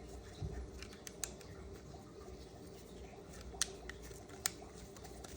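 Faint handling noise with a few sharp small clicks, two of them louder in the second half: plastic parts of a wireless video transmitter kit being handled and fitted.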